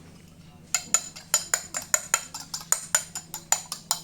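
Rapid, sharp metallic taps, about five a second and unevenly spaced, starting just under a second in, as metal parts of a sewing machine motor are knocked during reassembly. A faint steady low hum lies underneath.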